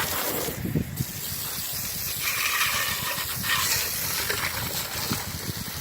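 Water hissing from an adjustable garden hose spray nozzle and splashing onto metal ceiling fan parts, a steady spray that grows brighter and harsher for a second or so near the middle.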